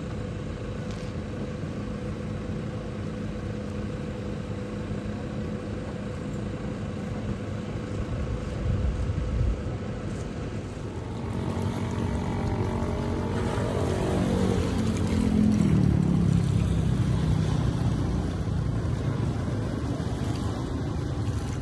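Engines running: a steady low idling hum for the first half, then a louder engine comes in about halfway through, its pitch sliding down as it passes, and a heavier rumble follows.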